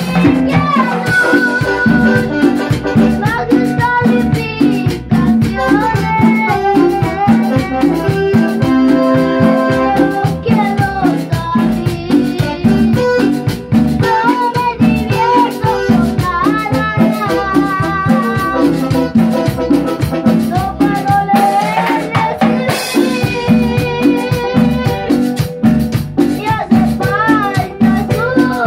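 Live band playing tropical Latin dance music: keyboards and electric bass over a steady drum beat, with a melody line that bends in pitch.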